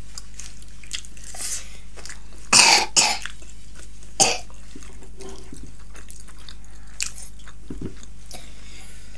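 Short coughs amid close-miked chewing: two sharp bursts close together about two and a half seconds in and a third about a second later, with small mouth clicks between.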